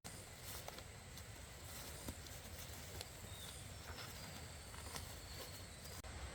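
Faint outdoor ambience: a steady high hiss with scattered light clicks and rustles.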